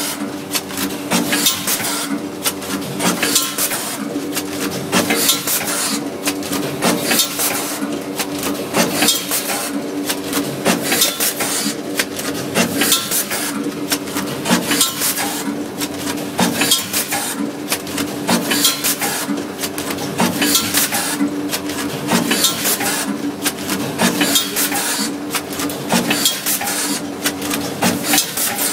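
Rotary pouch packing machine running: a steady hum under continuous metallic clatter and clinking from its turntable and grippers, with a burst of hiss about once a second as it cycles.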